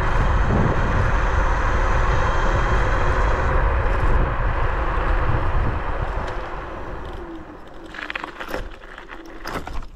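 Wind rushing over the microphone and tyre noise from a Bluetran Lightning electric scooter riding at speed. The noise dies away from about six seconds in as it slows, and a few clicks and rattles come near the end.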